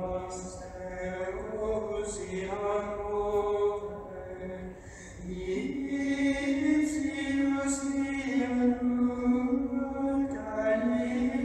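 A slow sung chant of long held notes, the pitch stepping up and the singing growing louder about halfway through.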